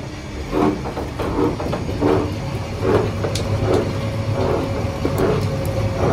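Rubber mixing mill running, its steel rollers working a batch of black rubber compound: a steady low hum with a rhythmic churning pulse about every three-quarters of a second.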